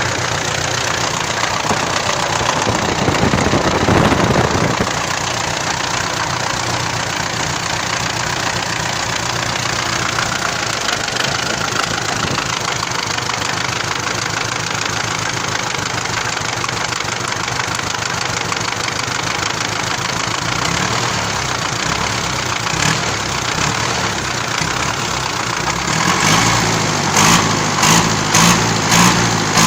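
MTZ-82 tractor's diesel engine running steadily, swelling louder for a moment a few seconds in. Near the end it pulses rhythmically, about one and a half surges a second.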